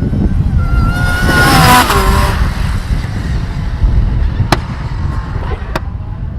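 A race car passing at speed on the track, its engine note at its loudest and dropping in pitch as it goes by about two seconds in, over a deep rumble. Two sharp cracks follow near the end.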